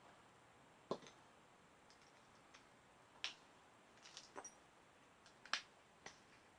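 Scattered sharp clicks and taps from a plastic plug-in timer switch being unscrewed and pulled apart by hand, against near silence. The loudest click comes about five and a half seconds in.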